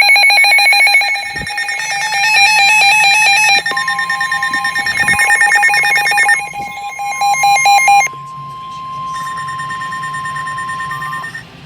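Several NOAA weather radios sounding their alerts together: layered, rapidly pulsing electronic beeps at different pitches. About four seconds in, the steady 1050 Hz weather-radio warning alarm tone joins and holds until just before the end. The beeping from the different radios cuts out in steps, around six and eight seconds in.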